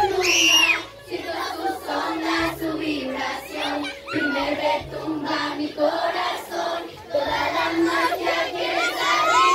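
Girl singing into a microphone over music, with a crowd of young fans singing along. A shrill scream rings out just after the start, and many high-pitched fan screams build near the end.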